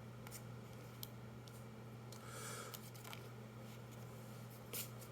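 Faint clicks and a brief soft rustle of Magic: The Gathering trading cards being handled and slid one over another, over a steady low hum.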